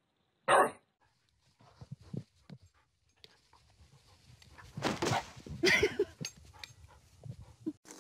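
A bulldog gives one short, loud bark about half a second in, followed by quieter, indistinct noises.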